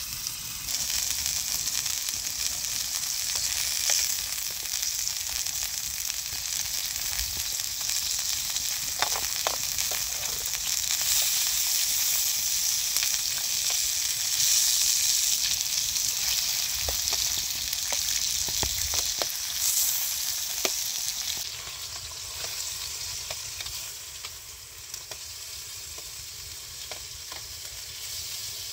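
Pieces of meat sizzling in a ridged grill pan, a steady frying hiss with a few light clicks around the middle. The sizzle drops quieter about three quarters of the way through.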